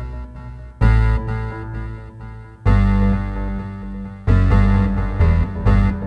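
Synth bass playing a modern R&B bass phrase: deep, sustained low notes struck about every two seconds, then two quicker notes near the end.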